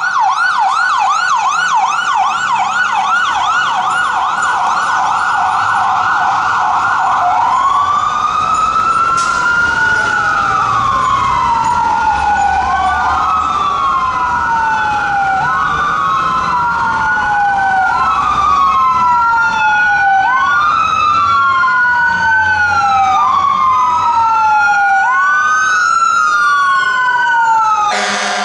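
Fire trucks' electronic sirens, Whelen type, sounding code 3: a fast yelp for the first several seconds, then switching to a slow rising-and-falling wail, with a second truck's siren wailing out of step with it from about ten seconds in. A short horn blast sounds near the end.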